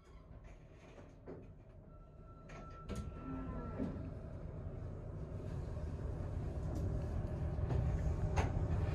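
Electric train rumble that builds steadily louder from about three seconds in, with scattered sharp knocks over it.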